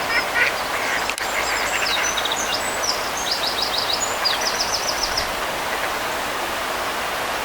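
Birds chirping in quick runs of short high notes for about five seconds, then stopping, over a steady outdoor rush.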